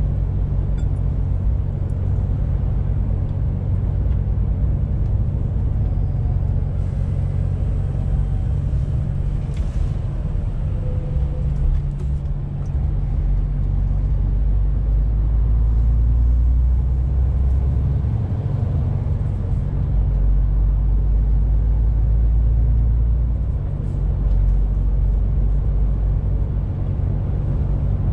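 In-cab sound of a MAN TGX 18.470 truck on the move: the 12.4-litre straight-six diesel's steady low drone under road and tyre noise. The drone swells and eases a few times as the engine load changes.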